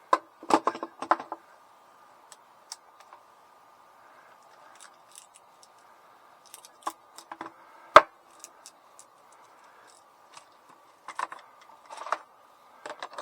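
Small clicks, rattles and knocks of air pistols, magazines and cartridges being handled, with a cluster near the start and one sharper knock about eight seconds in. A faint steady high tone runs underneath.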